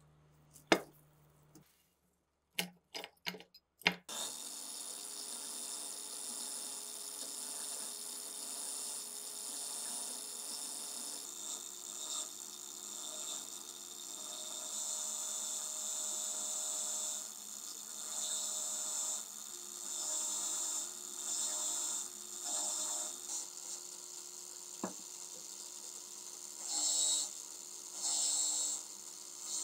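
A few sharp clicks and knocks, then an angle grinder with a wire wheel, clamped in a vise, running steadily. Small rusty metal parts are pressed against the wheel in repeated bursts of high scraping as the rust is brushed off.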